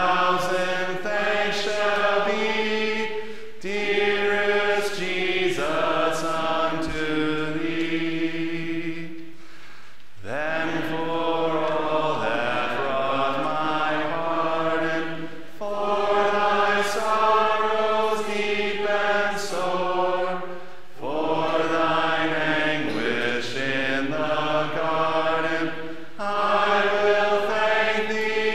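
A congregation singing a hymn without accompaniment, held notes in phrases of about five or six seconds with short breaks between them.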